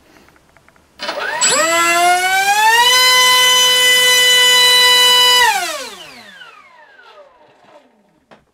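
NTM Rotor Drive 450 1700KV brushless outrunner motor on 6S LiPo spinning a propeller: a loud whine that rises as it throttles up, holds steady at full throttle for a couple of seconds while pushing about 1.8 kg of thrust, then winds down as the throttle is cut.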